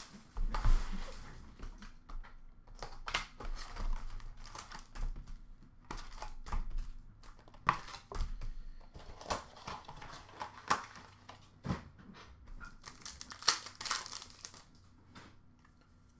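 Card packs and a cardboard hobby box being handled: irregular crinkling, rustling and light taps as the wrapped hockey card packs are pulled out of the box and stacked. The crinkling dies away near the end.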